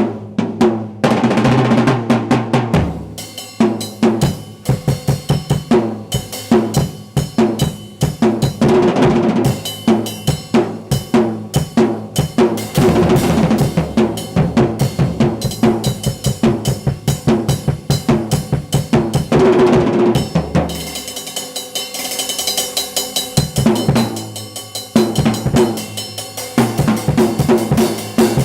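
Drum kit played solo: fast rolls and fills across snare and toms over bass drum hits, with a stretch of cymbal crashes about three quarters of the way through.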